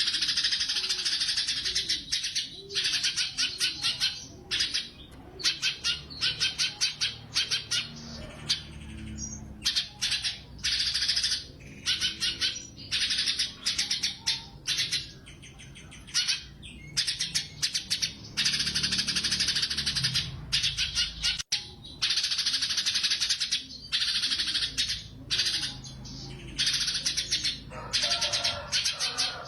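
Blue-winged leafbird (cucak cungkok) singing in rapid trilled bursts: fast strings of high repeated notes in phrases of one to a few seconds, broken by short pauses.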